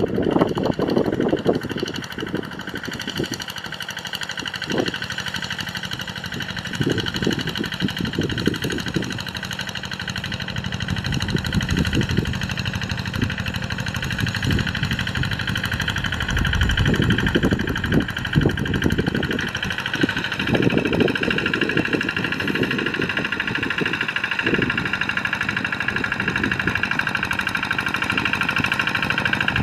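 Kubota RD85 single-cylinder diesel engine of a Quick G1000 Boxer two-wheel hand tractor running steadily while the tractor plows a rice paddy.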